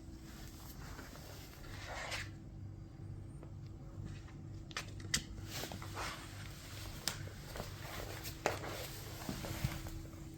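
Soft rustling in swells with several sharp clicks, the loudest about five, seven and eight and a half seconds in, over a faint steady hum.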